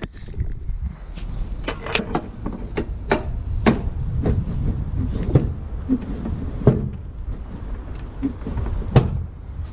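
Caravan corner steady being wound with a crank handle: irregular metallic clicks and pops, roughly one or two a second, with a heavier knock near the end.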